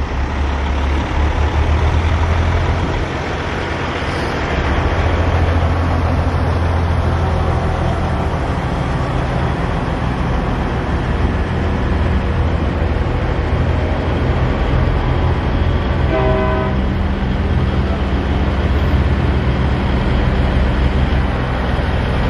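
Diesel engines of semi-tractor trucks running as they drive slowly past, a steady low rumble. A short horn blast sounds once, about sixteen seconds in.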